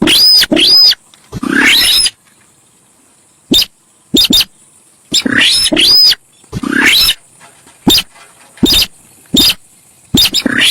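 Sintar sawah bird calling over and over: about a dozen loud, harsh short calls, some single and some in quick pairs, each rising quickly in pitch. A steady high hiss runs underneath.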